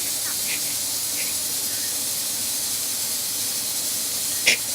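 A couple of faint short laughs in the first second and a half, then one brief sharp sound near the end, over a steady hiss.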